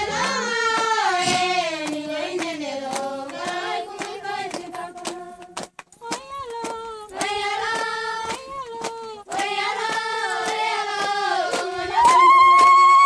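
A group of women singing together with hand clapping, the singing breaking off briefly about six seconds in. About a second before the end, a loud steady held note suddenly takes over.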